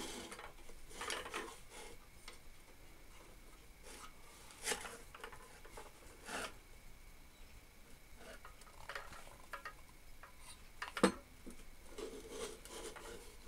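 Hands moving and turning a small lathe sculpture made of nuts, bolts and scrap metal: faint rubbing with scattered light metal clicks and knocks, and one sharper knock near the end.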